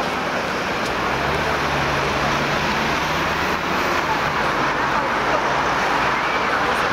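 Busy outdoor street ambience: a steady wash of crowd noise and traffic, with a low hum from about one second in to about three and a half seconds.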